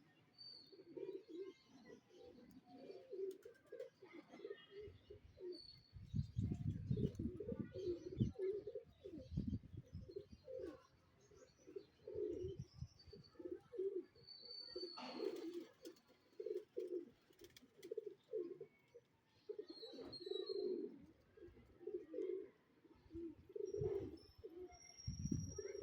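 Domestic pigeons cooing over and over, with short high chirps scattered through it. A low rumbling noise comes in for several seconds near the start.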